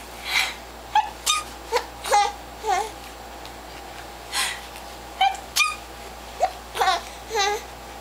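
A woman makes playful fake sneezes, four short breathy bursts a couple of seconds apart. Between them a baby answers with short high squeals and giggles, and the woman laughs.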